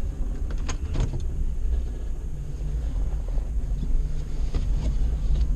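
A vehicle engine running with a steady low rumble, with a couple of sharp clicks about a second in.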